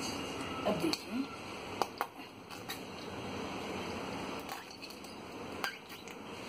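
Kitchen handling sounds: water sloshing faintly in a steel bowl, with a few sharp clicks and knocks about two seconds in and again near the end, over a steady background hiss.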